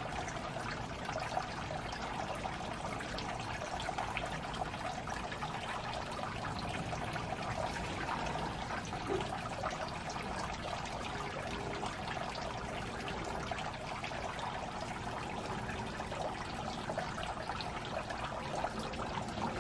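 Steady trickling, splashing water that runs on without a break.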